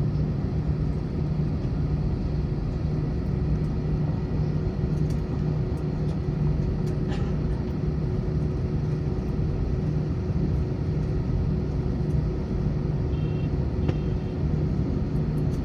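Cabin noise of an Airbus A321 taxiing after landing: a steady low rumble with its engines at idle, with a steady hum over it.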